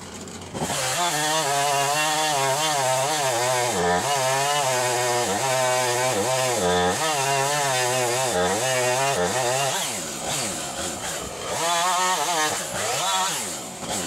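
Husqvarna chainsaw running at full throttle, cutting through pecan limbs, its pitch wavering as the chain bites and frees. After about nine seconds it drops back, revs up once more briefly, and falls away toward idle.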